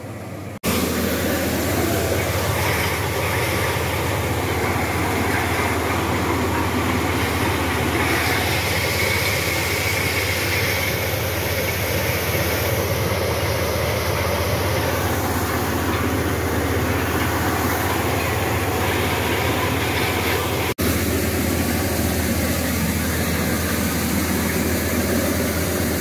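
Tractor-driven corn sheller running at full speed while cobs are fed in and kernels are blown out through its spout: a steady, loud mechanical noise with a low hum underneath. It cuts out for an instant about 21 seconds in.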